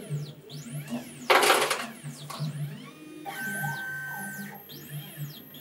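Stepper motors of a flowbot ONE pipetting robot whining in rising and falling sweeps as its eight-channel pipette head moves during a tip pick-up test. A loud rush of noise lasting about half a second comes about a second and a half in, and a steady high tone holds for about a second past the middle.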